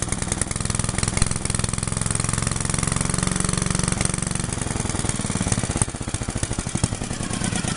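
Antique Briggs and Stratton Model B single-cylinder engine running steadily with a fast, even firing beat; the beat turns rougher and more uneven about six seconds in.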